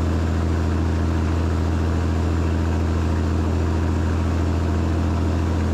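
Cabover semi truck's diesel engine pulling steadily up a highway grade, a deep, even drone with road noise over it.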